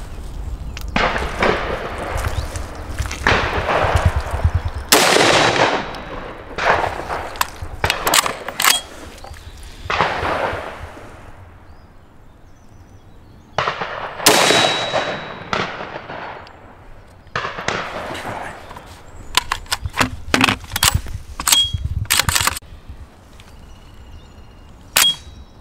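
Shots from a Schmeisser SP15 straight-pull .223 rifle, spaced several seconds apart, the two loudest about five and fourteen seconds in and each followed by a ringing tail. Between the shots come sharp metallic clacks of the straight-pull action being worked by hand.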